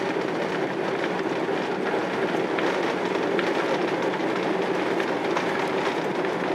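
Steady cabin rumble of a Boeing 767-300 on its landing roll, ground spoilers deployed, heard from a rear seat by the wing, with a few faint clicks.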